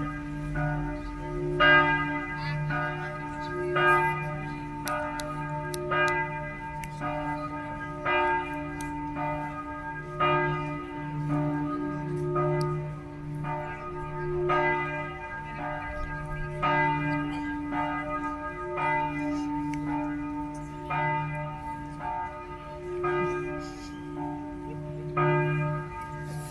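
Church bells struck with a hammer (rung 'a martello'), about one stroke a second, with several bell pitches overlapping above a long, steady hum.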